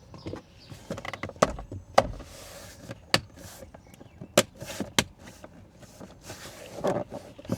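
Plastic car-interior dash trim being handled and pressed into place: a scattered series of sharp clicks and knocks as panels are pushed and snapped together, with softer rubbing and rustling between them.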